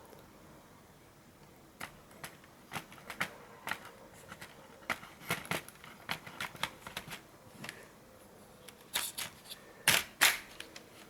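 Irregular light clicks and taps of small parts and tools being handled, a few every second, with a cluster of louder clicks near the end.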